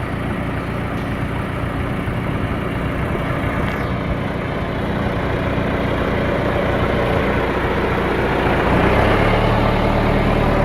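John Deere 310A loader backhoe's engine running steadily, then speeding up and getting louder near the end.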